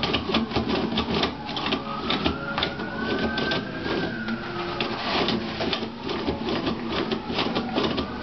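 Toilet paper roll spinning and rattling on its holder as a cat paws and pulls at it, paper rustling, with dense irregular clicking and a faint squeal that rises and falls.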